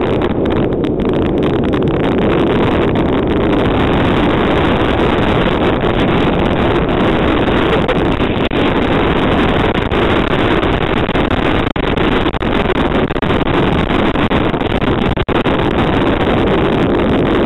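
Steady rush of wind across the microphone and snow hissing under a toboggan speeding downhill, with two brief dropouts in the second half.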